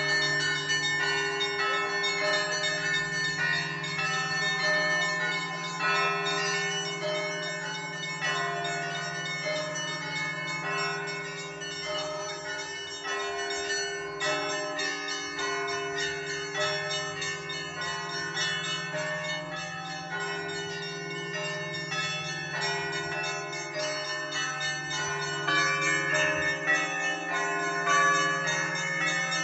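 Russian Orthodox cathedral bells rung by hand: quick, continuous strikes of the smaller bells in overlapping patterns over the steady deep ringing of the larger bells. The ringing grows a little louder near the end.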